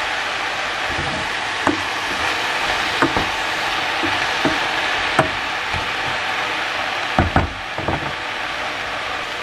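Kitchen cooking sounds: a steady hiss with scattered sharp knocks of utensils, and a quick cluster of knocks about seven seconds in.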